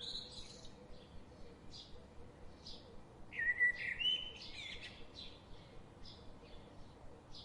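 Birds chirping and singing, short calls scattered throughout, with a louder phrase of calls about three to four seconds in.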